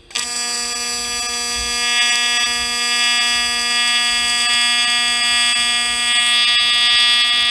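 AC TIG welding arc from a Miller Dynasty 300DX set to 240 Hz AC with 120 pulses per second, welding zinc: a loud, steady, high-pitched buzz that strikes abruptly at the start.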